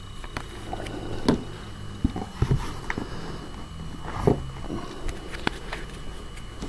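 Magic: The Gathering playing cards handled and sorted by hand: a handful of light clicks and slides as cards are flicked and slid against each other, over a steady low hum.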